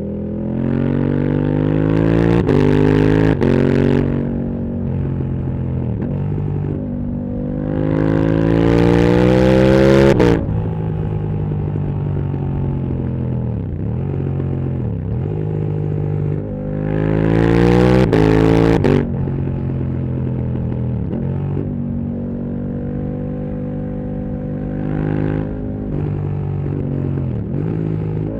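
KTM 1290 Super Duke R's V-twin engine through a full titanium Akrapovič exhaust, accelerating hard three times. In the first run it climbs through two quick upshifts, and each later run ends with a sudden roll-off. Between runs the revs fall away on the overrun, and near the end the engine holds a steady cruise.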